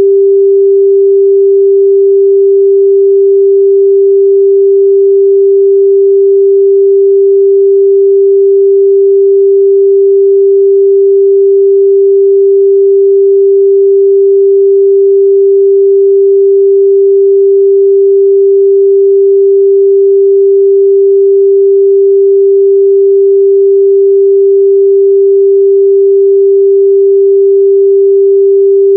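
Pure 394 Hz sine-wave test tone, held at one pitch and a constant loud level, with no overtones.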